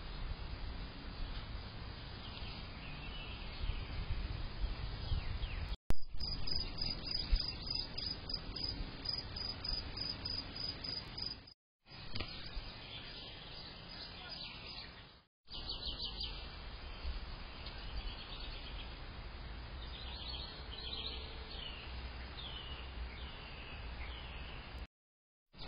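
Outdoor ambience through a security camera's microphone: a steady low rumble with birds chirping and calling in the background, and a rapid, even high trill for several seconds in the middle. The sound cuts out completely for a moment three or four times.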